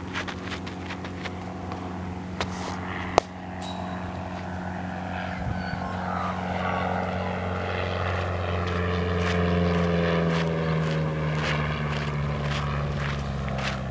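Propeller-driven aircraft passing over. Its drone builds to its loudest about two-thirds of the way through, then drops in pitch as it goes by. A single sharp knock about three seconds in.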